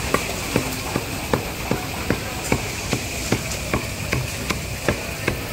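Street-food cooking: a utensil striking steadily, about two and a half sharp strikes a second, over a constant background hiss.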